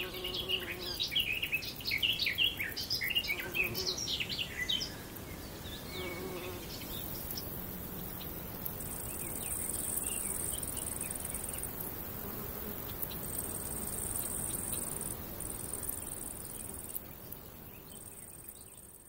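Summer meadow ambience: a quick run of short, high chirps for the first few seconds, then insects stridulating in high-pitched buzzing stretches of a couple of seconds each, fading out near the end.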